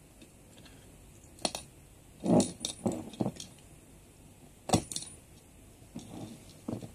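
Metal clicks, clinks and a short chain jangle as a brass alcohol blow torch and a small chained lighter are handled, with a pair of sharp clicks a little before five seconds in as the lighter is lit.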